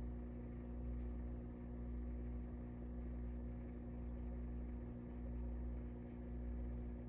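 Steady low electrical hum with a faint hiss, swelling slightly every second or two, of the kind aquarium equipment makes.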